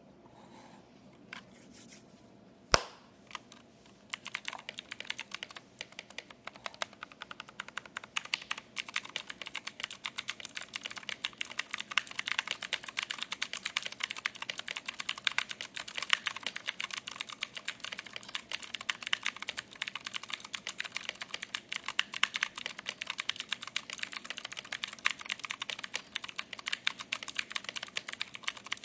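Typing on a mechanical keyboard: a few scattered key clicks, one of them sharp and loud, then fast continuous typing starting about four seconds in, a dense run of clacks.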